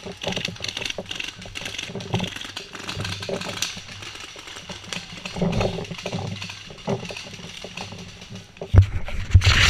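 Indistinct voices, with scattered sharp clicks and pops throughout. A few loud low thumps come near the end.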